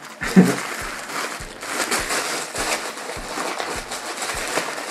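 Clear plastic bag crinkling as a plush Pokéball is handled and unwrapped in it, with soft low thumps repeating evenly a little under twice a second underneath.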